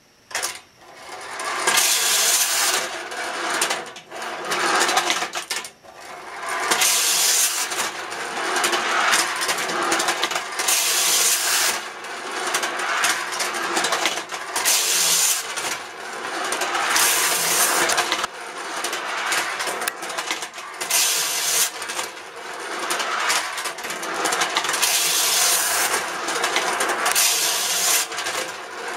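Clockwork spring motors of Technofix tin wind-up buses whirring as they run along the toy's tin track, with short breaks about four and six seconds in.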